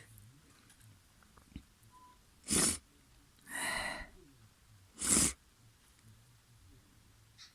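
A person sneezing, three sudden bursts about a second apart, the middle one longer than the other two, from a snotty, congested nose.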